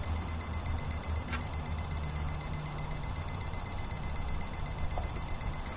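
Digital cooking thermometer alarm beeping, a high-pitched electronic tone pulsing rapidly and evenly as the water reaches boiling temperature. Under it is a steady low rumble of wind.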